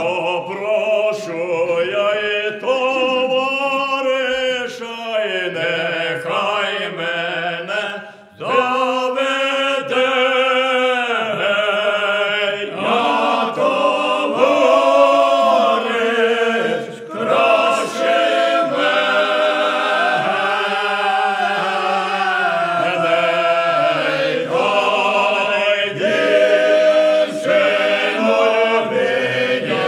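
Voices singing a Ukrainian lyrical village folk song a cappella, long drawn-out sung phrases with a short breath break about eight seconds in.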